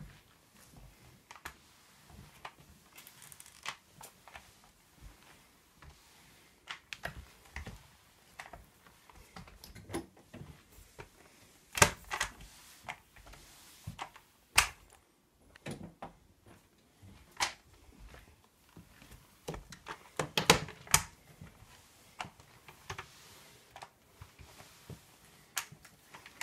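Flat microfiber mop worked over a hardwood floor and along the baseboards: irregular clicks and knocks from the mop head, its swivel joint and the head bumping the baseboard. A few sharper knocks come near the middle and about two-thirds of the way through, over a faint swish of the pad on the floor.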